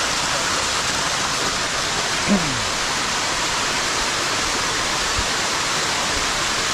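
Steady rush of a waterfall pouring over rocks. About two seconds in, a brief low sound slides down in pitch.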